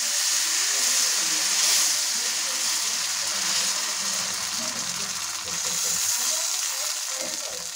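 Rice batter for chuda chakuli sizzling steadily as it is poured and spread over a hot, oiled iron tawa, easing slightly toward the end.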